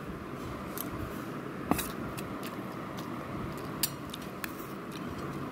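Steel spoon clinking against a stainless-steel bowl and plate: a handful of light, scattered clicks, the sharpest just under two seconds in, over a steady background hiss.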